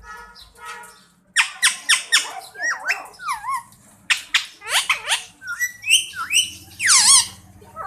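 Pet Indian parakeet squawking and chattering: a run of sharp, screechy calls with warbling pitch glides, the loudest a long wavering call about seven seconds in.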